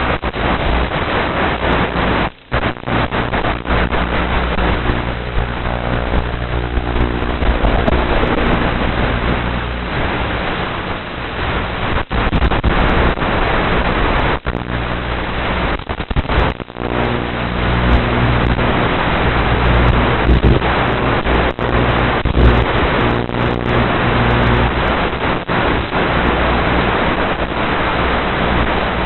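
FPV quadcopter's motors and propellers running, heard as a constant rush of prop and wind noise with a steady motor hum that comes and goes with throttle, broken by a few brief dropouts.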